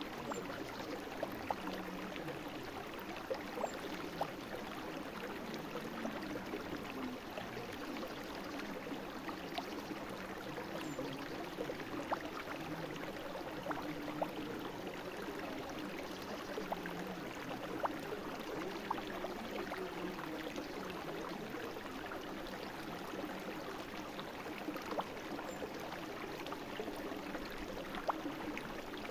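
A brook flowing: a steady babble of water with many small splashes and gurgles.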